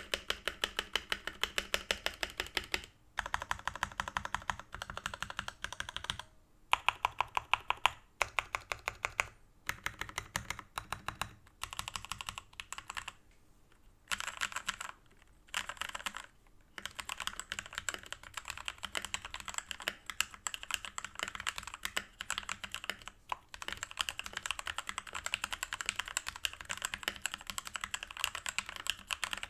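Typing on a Keychron K4 mechanical keyboard with factory-lubed Gateron G Pro Red linear switches: rapid runs of key clacks broken by short pauses, then steady continuous typing from about halfway through.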